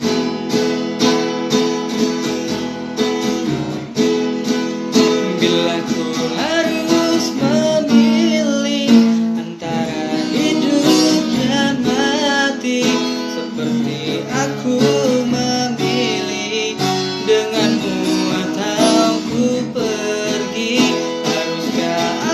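Acoustic guitar strummed in a steady rhythm, about two strums a second, with a voice singing over it from about six seconds in.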